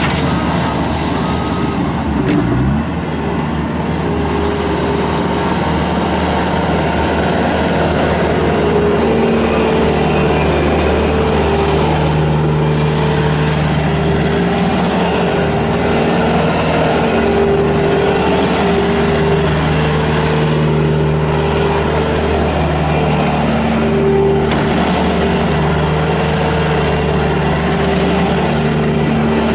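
Kubota diesel engine of a 2007 Bobcat S250 skid steer loader running steadily, its pitch dipping briefly about two to three seconds in.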